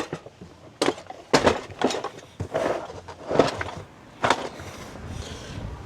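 Tools and toolboxes being packed up and stacked: a run of sharp knocks and clatters at irregular intervals, easing off near the end.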